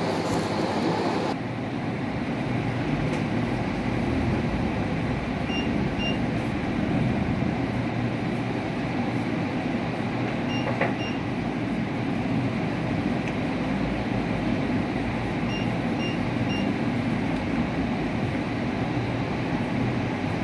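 Steady background hum and hiss, with short high electronic beeps from a sublimation mug press's digital controller as its buttons are pressed: two about five seconds in, two near the middle with a small click, and three in quick succession later on.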